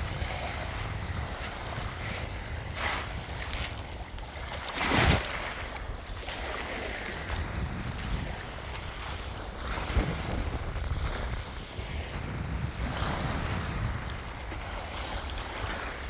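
Wind buffeting the phone's microphone as a steady low rumble, with small sea waves washing at the shore; a louder rush of water or wind comes about five seconds in.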